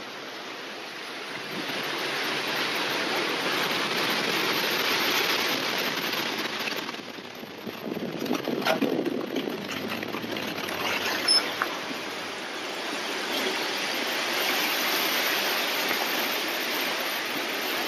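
Hunter River floodwater rushing and churning in turbulent eddies, a steady rushing noise. About halfway through it dips briefly, then a few short louder bumps and crackles stand out.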